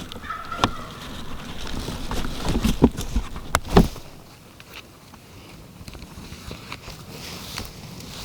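Scattered knocks and rustling of someone moving on foot through brush with gear, heaviest in the first four seconds, then quieter with light ticks.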